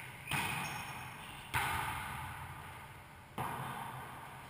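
A wallyball struck three times during a rally, each sharp smack ringing out in the echo of a bare-walled racquetball court.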